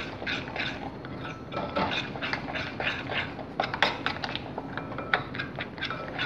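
Egg being beaten into a thick cornflour and rice-flour batter in a glass bowl: a utensil stirring quickly through the wet batter and ticking against the glass, about three strokes a second, with a few sharper clicks.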